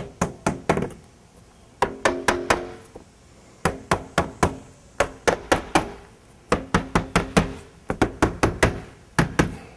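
A hammer driving nails into window trim: about five quick runs of sharp strikes with short pauses between them, and a ringing tone between strikes.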